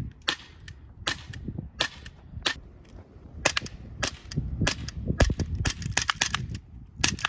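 Umarex Glock 19X CO2 blowback airsoft pistol firing a string of sharp shots, spaced under a second apart at first, then coming faster in the second half as the magazine is emptied.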